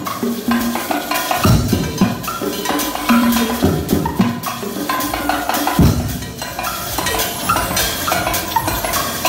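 Drumbeater percussion ensemble of snare drums, timbales, congas and large metal barrel drums playing a dense, driving rhythm. Heavy low strokes land about one and a half seconds in and again near six seconds.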